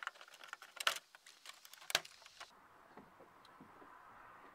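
Chevy Express interior door panel's retaining clips popping free of the door: a run of quick clicks and rattles, with two sharp snaps about one and two seconds in, then quieter.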